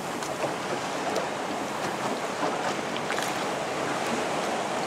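Steady rush and splash of seawater around a small motor boat, with wind buffeting the microphone.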